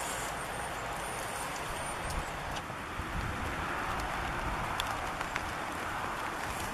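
Steady rain falling, with a low rumble of wind on the microphone and a few light drips or taps.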